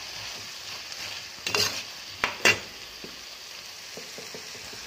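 Potato chunks and broccoli florets sizzling in hot oil and spice paste in a frying pan while a spatula stirs them, scraping and knocking against the pan a few times in the middle, the loudest knock about two and a half seconds in.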